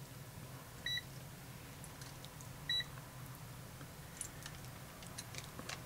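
AstroAI M4KOR multimeter's beeper giving two short, high chirps about two seconds apart as the test probes touch across a Schottky diode in diode-test mode; the meter chirps on contact and then shows the diode's forward voltage. Faint clicks of the probe tips follow.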